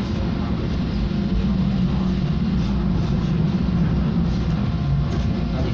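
Vario LF2 plus low-floor tram running along the street, heard from inside the car: a steady rumble of wheels on rails and running gear.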